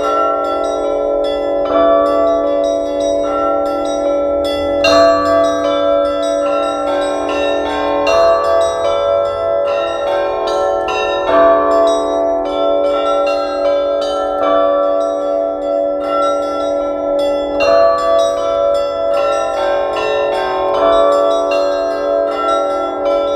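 Russian Orthodox church bells ringing a peal (zvon): a heavier stroke about every second and a half, with smaller bells chiming quickly in between over the lingering ring.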